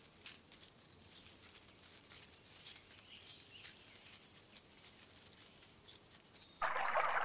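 Cassowary chicks giving three short, high whistling peeps a few seconds apart, with faint rustling in dry leaf litter. Near the end the louder rush of a shallow stream comes in.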